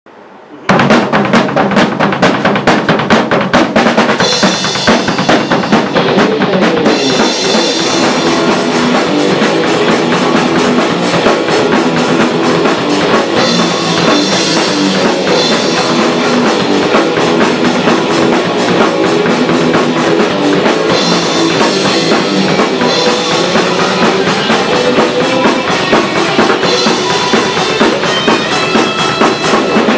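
A rock band playing live: a drum kit comes in abruptly under a second in, with rapid kick-drum and snare hits and cymbals, and two electric guitars play along with it.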